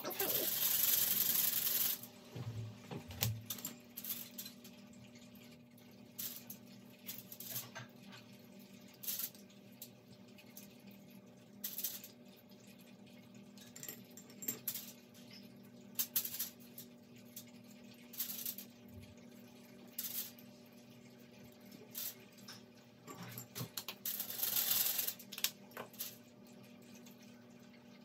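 Paintbrush rinsed in a glass jar of water, a watery swishing for about the first two seconds and again near the end, with short taps and clinks of the brush on the jar and on the paper scattered in between.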